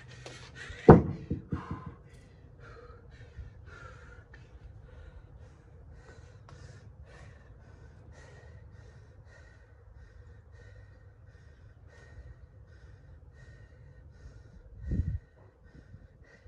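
A pair of 40-pound rubber hex dumbbells set down on a concrete driveway about a second in: a heavy clunk with a quick bounce. Then hard breathing while resting, and a short low rumble near the end.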